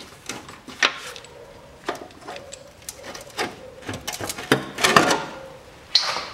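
Knocks, clatters and scrapes of an underbody guard panel being worked loose and pulled off by hand, heaviest about five seconds in, with a sharp scrape about six seconds in.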